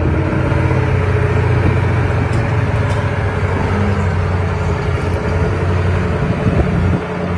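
Caterpillar 988B wheel loader's V8 diesel engine running steadily as the loader carries a large marble block on its forks: a deep, continuous engine hum, its note shifting slightly near the end.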